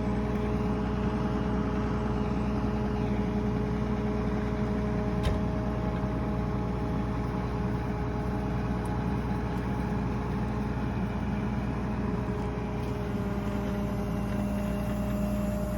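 Tractor engine running steadily under load while baling hay, with a steady whine over the engine hum. A single sharp click about five seconds in.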